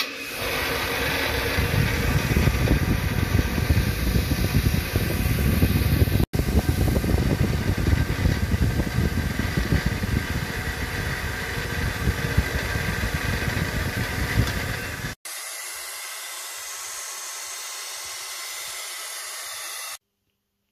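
Bench grinder running with a wire wheel, a steel Model T front-suspension part pressed against it to brush off rust: a loud, steady grinding rush. The sound cuts off abruptly twice, and after about fifteen seconds a quieter, thinner steady hiss is left.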